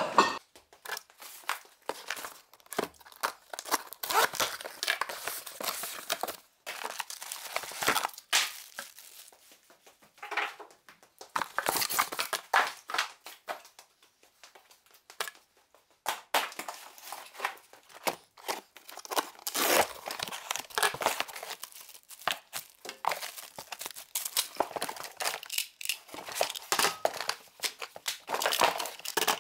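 Packaging being unpacked: plastic wrap and paper crinkling and tearing in irregular bursts, with short pauses between.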